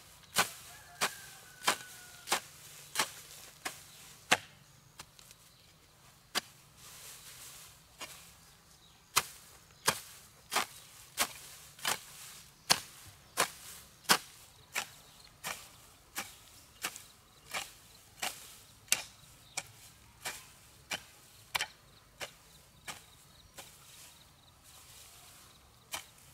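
Chopping with a blade in a steady rhythm of sharp strikes, about three every two seconds, with a pause of a few seconds after the first few seconds.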